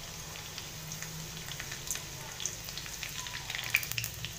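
Chopped garlic and cumin seeds sizzling in hot oil in a thick aluminium kadhai: a soft steady sizzle with scattered crackling pops that come thicker near the end.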